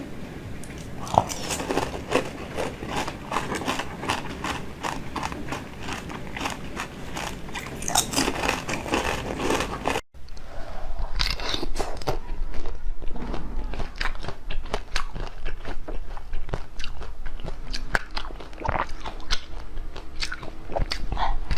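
Close-miked eating sounds: crisp crunching bites and chewing of frozen treats, with many sharp crackles, breaking off for an instant about ten seconds in.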